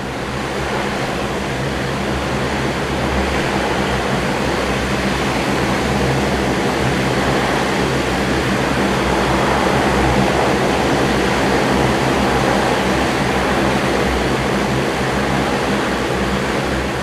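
CASA CN-235 twin-turboprop aircraft taxiing past with both engines and propellers running: a loud, steady rushing drone with low engine tones underneath. It swells as the aircraft nears, peaking about ten seconds in, and eases off near the end.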